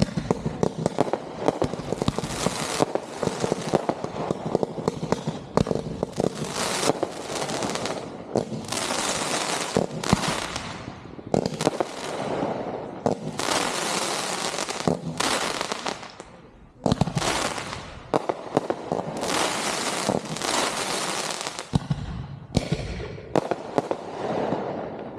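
Consumer 1.4G fireworks going off in rapid succession: near-continuous volleys of sharp bangs over a rushing, crackling noise, with a brief lull about two-thirds through.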